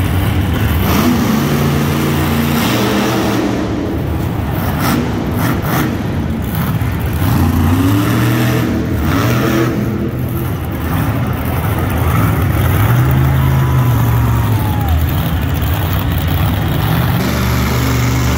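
Monster truck engines revving and accelerating, their pitch rising and falling repeatedly as the trucks drive and jump.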